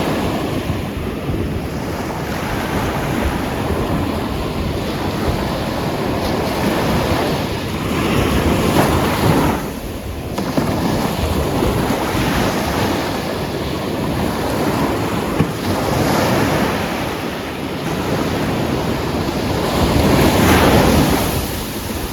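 Atlantic surf washing onto a beach of black volcanic sand and pebbles: a steady rush of breaking waves that swells as waves break about eight seconds in and again near the end, with wind buffeting the microphone.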